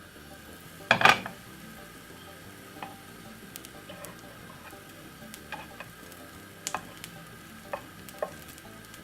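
Pancake batter frying in a non-stick pan with a faint sizzle, with a loud clack about a second in and light scattered clicks of a utensil on the pan after it.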